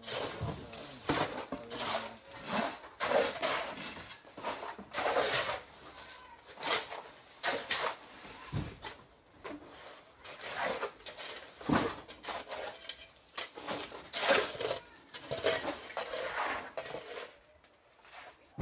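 Irregular clanks and scrapes of metal hand tools at construction work, coming about once a second.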